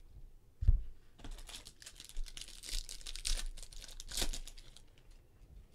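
A silver foil trading-card pack crinkling as it is torn open, the crackling going on for about three and a half seconds. It is preceded by a single dull thump just under a second in.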